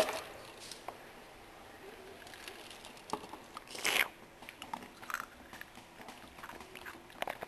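Scattered crunching, rustling and clicking noises close to the microphone, with the loudest rustle about four seconds in.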